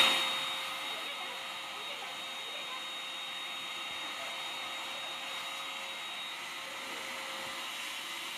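Upright vacuum cleaner running steadily with its hose and wand in use: a continuous rush of air with a steady whine over it.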